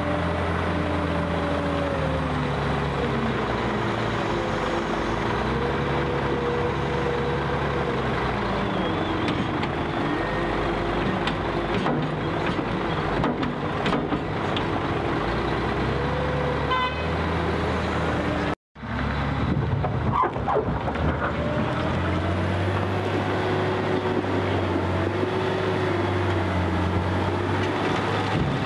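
Liebherr L566 wheel loader's diesel engine working under load, its pitch rising and falling as the bucket lifts and tips soil into a dump truck, with scattered knocks as the soil goes in. The sound cuts out for a moment about two-thirds through, then the engine runs on as the bucket pushes into brick rubble, with more knocks.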